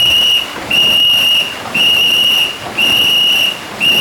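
Ngo racing-boat team's whistle blown in long, even blasts, one high tone about once a second, calling the paddle-stroke rhythm for the crew.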